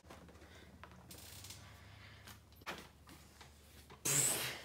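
Plastic baby powder bottles squeezed and shaken upside down over plastic tubs, puffing powder out with a faint hiss, then a louder, short airy puff about four seconds in.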